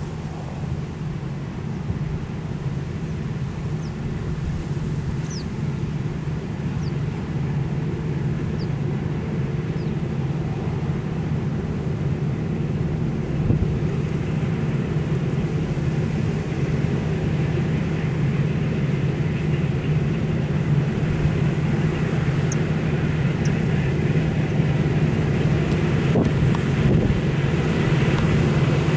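Claas Lexion 580 combine harvester running steadily while harvesting wheat: a constant low engine drone that gets gradually louder.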